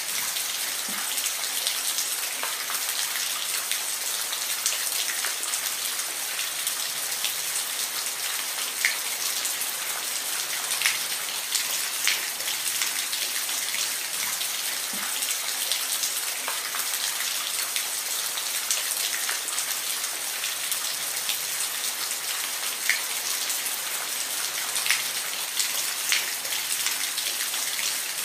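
Steady rain: an even hiss of falling rain, with scattered sharper drops ticking on a surface.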